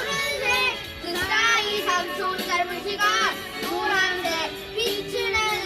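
Children singing a song along with music.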